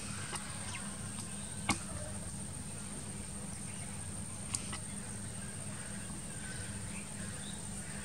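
Rural outdoor ambience: faint scattered bird chirps over a steady low hum and a steady high-pitched whine, with two sharp clicks, one just under two seconds in and one about four and a half seconds in.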